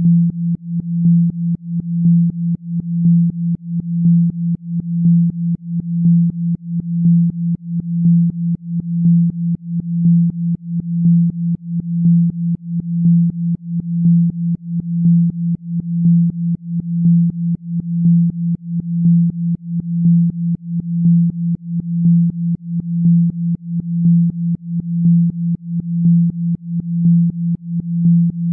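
A synthesized low healing tone, presented as a Rife frequency for regenerating the spine. It holds one steady pitch and pulses evenly several times a second.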